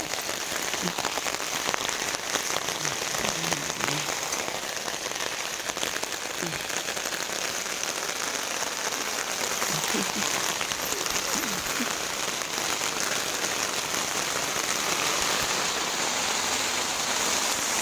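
Steady rain falling on a tent, a dense even hiss of countless drops with fine individual ticks.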